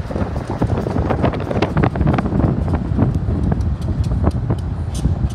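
Car road noise, heard from inside the moving car: a steady low rumble, with wind buffeting the microphone in irregular gusts.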